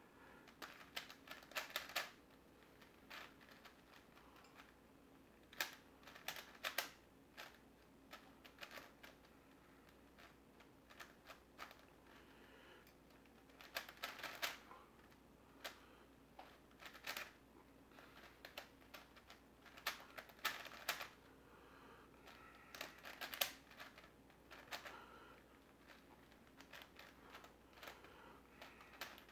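Plastic Rubik's-type twisty puzzle being turned fast by hand: irregular runs of quick clicking and clacking layer turns, with short pauses between runs.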